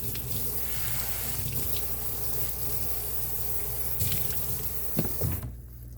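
Sink tap running, water splashing over a dirty Dyson vacuum filter being rinsed, with a couple of knocks near the end; the water shuts off suddenly about five and a half seconds in.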